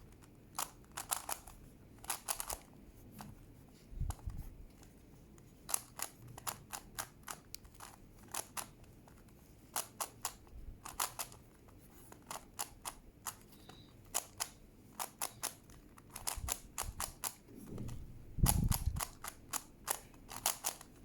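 Plastic Megaminx puzzle being twisted by hand: many sharp clicks of its faces turning, coming irregularly in quick runs. A low thump sounds near the end.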